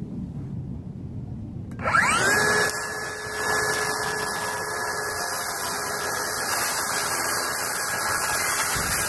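A circular saw spins up about two seconds in, its whine rising quickly to a steady high pitch. It then cuts through a metal roofing sheet with a steady, loud whine.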